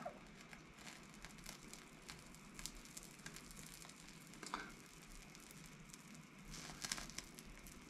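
Faint steady hiss of a small gas torch flame heating a steel nut. Scattered soft crackles and ticks come from the oil sweating out of the hot threads and sizzling.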